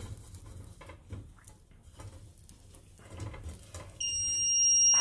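A smoke alarm sounds about four seconds in with a loud, high-pitched steady beep lasting about a second, set off by smoke from butter burning in the pan. Before it, faint scrapes and clinks of a spatula against a stainless steel pan.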